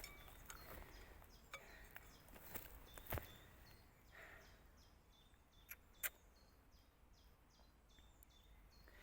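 Near silence: faint outdoor background with a few short clicks or knocks, the loudest about three seconds in and two more around six seconds.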